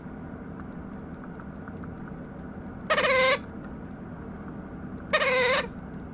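Baby white-capped pionus parrot giving two begging calls for food, each a short nasal cry about half a second long, a couple of seconds apart.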